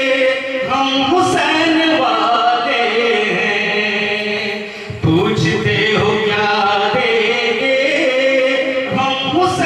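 A man chanting devotional Urdu verse into a microphone in long, drawn-out melodic lines, with a short break about five seconds in.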